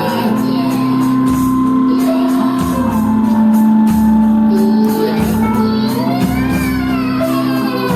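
Recorded band music: sustained droning tones over a steady low beat about once a second, with a gliding melodic line rising and falling near the end.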